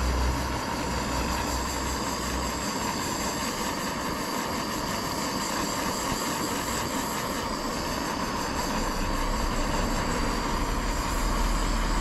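Butane mini-torch flame hissing steadily while it heats shrink tubing over a spliced wire connection.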